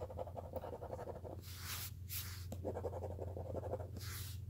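Scratch-off lottery ticket having its coating scraped off with quick, rapid strokes, in two spells of about a second each.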